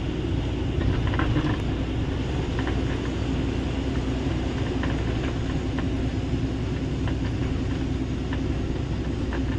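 Truck engine running and road noise inside the cab while driving: a steady low rumble with a faint steady hum and a few light rattles.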